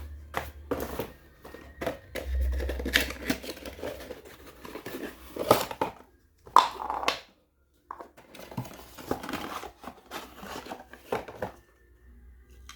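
Packaging being handled and opened: irregular crinkling and rustling with sharp clicks, cutting out for about a second midway.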